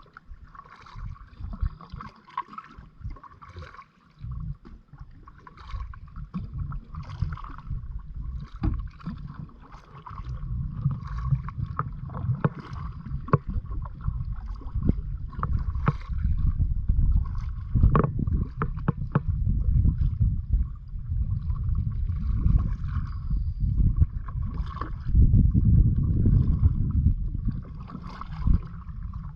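Kayak paddle strokes dipping and splashing in the water at a steady rhythm, about one a second, over a low rumble of wind on the microphone that gets heavier about a third of the way in.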